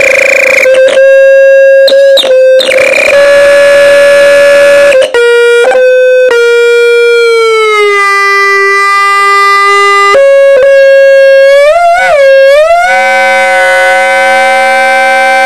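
Electronic feedback howling through an overdriven mini guitar amp, with the Beep Poet noise maker's tin-mounted speaker acting as a microphone and its tones mixed in. Loud held tones break off and restart several times, then step down in pitch. Near the end they wobble and glide, then settle into a dense chord with a warbling lower layer.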